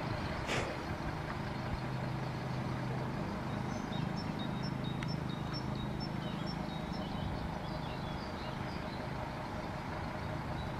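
Diesel railcar, an Alstom Coradia LINT 41, running with a steady low engine hum as it pulls slowly into the station. A short hiss of air comes about half a second in.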